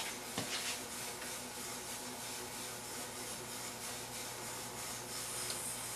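Quiet machine-shop room tone: a steady hum and hiss, with a few faint clicks about half a second in.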